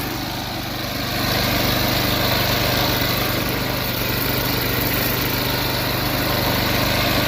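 Small gas engine of a DR string trimmer running steadily. About a second in it grows louder and fuller as the bail bar is engaged and the trimmer head spins its single test line.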